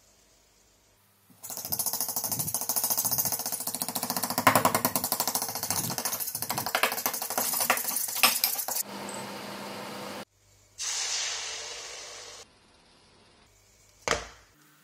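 Fork beating eggs and cheese in a small glass bowl: fast, continuous clinking of metal against glass for about seven seconds. Afterwards come a short steady hum, a brief hiss and a single sharp knock near the end.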